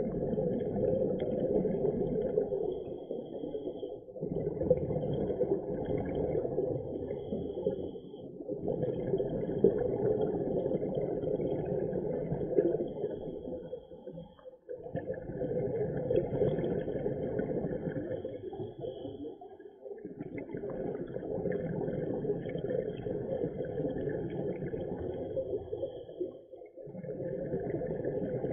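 A scuba diver breathing through a regulator, heard underwater: long muffled rushes of breath and bubbles, each lasting about four to six seconds with a short pause between, about six in all.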